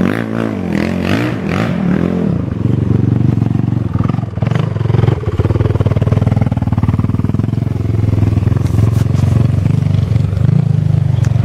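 2006 Honda TRX450R quad's single-cylinder four-stroke engine revving up and down in quick bursts for the first two seconds, then settling into a steady idle, with one brief dip and blip about four seconds in.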